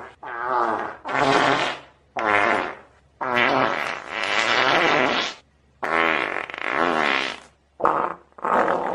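A string of about seven fart sounds of uneven length, each a wavering pitched blast, the longest lasting over a second, with short breaks between them.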